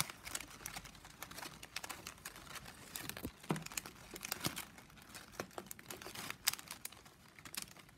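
Plastic strapping band being threaded and pulled through a woven piece by hand: irregular crinkling, light scraping and small clicks as the strips slide against each other.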